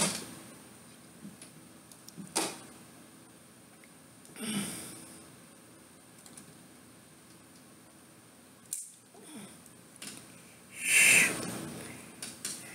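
A man breathing heavily close to the microphone, with a loud breath about four seconds in and a louder one near the end, and a few sharp clicks of handling in between, over quiet room tone.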